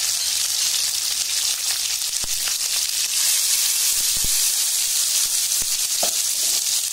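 Tomatoes, onions and curry leaves sizzling steadily in hot oil in a pan as the ground masala paste goes in, with a few light knocks about two, four and five and a half seconds in.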